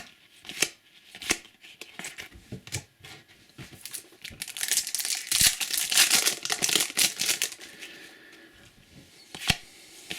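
A foil trading-card packet being crinkled and torn open, loudest through the middle, with sharp clicks of cards being handled before and after.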